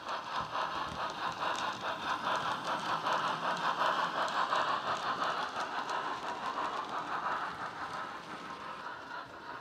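Model train running past: the Hornby D16/3 steam locomotive's DCC sound playing from its onboard speaker, together with the fine rattle of the model wagons' wheels on the track. Loudest about four to five seconds in as the wagons pass close by, then easing off as the brake van goes by.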